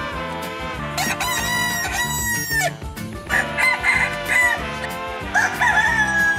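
Roosters crowing: three crows one after another, each a drawn-out cock-a-doodle-doo, over upbeat background music.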